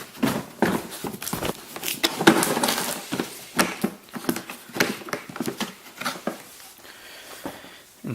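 Hard plastic tool carrying case being handled and opened: an irregular string of clicks, knocks and scrapes from its latches and lid. The sounds thin out and get quieter over the last couple of seconds.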